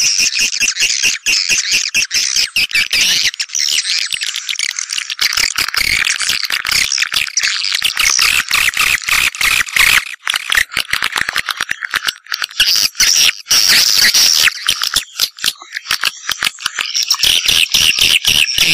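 Swiftlets twittering: a dense, unbroken stream of rapid high chirps and clicks. This is a swiftlet lure call, the kind of sound played to draw swiftlets into nesting houses.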